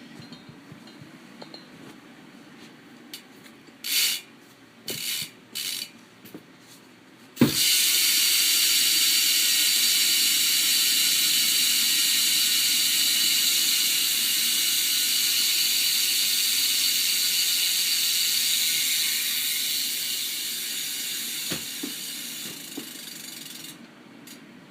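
Profile Mini rear cassette hub on a BMX bike freewheeling. Its pawls give three short bursts of clicking. Then the wheel is spun hard and the hub lets out a loud continuous buzz for about sixteen seconds, fading gradually as the wheel slows before stopping.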